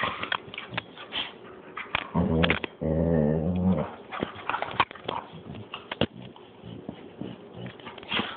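A German Shepherd and a Rottweiler-boxer mix play-fighting mouth to mouth: many short clicks of jaws and teeth, with a low growl lasting about a second and a half a little over two seconds in.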